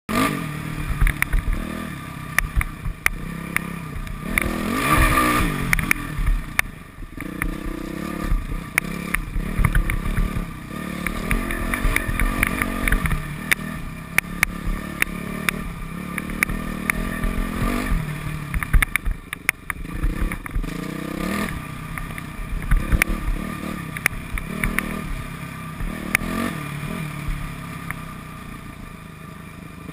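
Modified Yamaha YZ426F single-cylinder four-stroke dirt bike engine, revving up and falling back over and over as the bike is ridden, with many sharp knocks and rattles mixed in.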